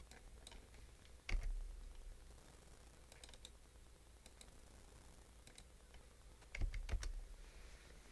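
Scattered keystrokes and clicks on a computer keyboard, with a louder knock about a second in and two more close together near the end.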